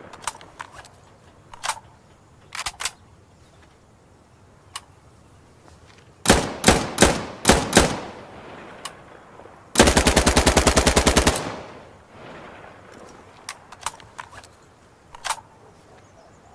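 Uzi submachine gun firing on full auto. About five short bursts come around the middle, then one long rapid burst of about a second and a half, with a fading echo after it. Scattered sharp clicks and cracks fall before and after the bursts.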